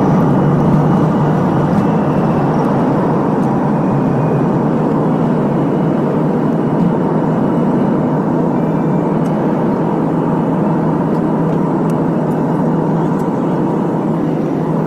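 Steady cabin noise of an airliner's jet engines and rushing air, heard from inside the passenger cabin during takeoff and the initial climb.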